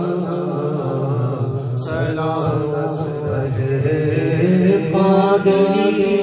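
A man singing a naat, an Islamic devotional song, into a handheld microphone, in long wavering melodic phrases.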